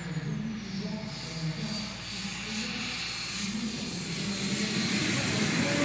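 Model jet turbine of a large RC F-104 Starfighter running at low power through landing and roll-out on grass. It makes a high whine that dips slightly in pitch in the first second, then holds steady and grows louder.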